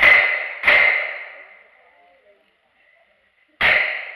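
Single-action revolver firing three shots: two under a second apart, then a pause, then a third about three and a half seconds in. A ringing note from struck steel targets trails after the shots.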